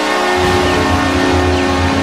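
Hockey arena goal horn, a custom version of the Calgary Flames horn, blaring with a steady chord. A low pulsing rumble joins about half a second in.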